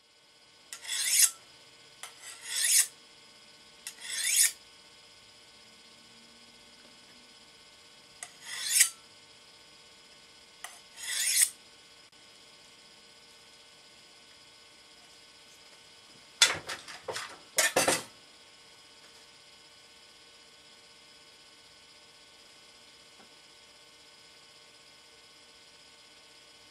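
Short rasping scrapes, each swelling quickly and cutting off: five spaced over the first twelve seconds, then a quick cluster of louder scrapes about two-thirds of the way through. A faint steady hum lies underneath.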